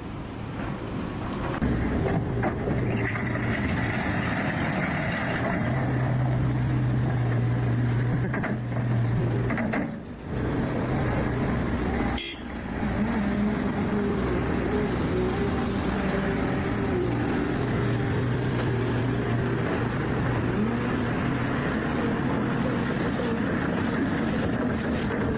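Engines running steadily, with a low hum, broken by short drops about 10 and 12 seconds in.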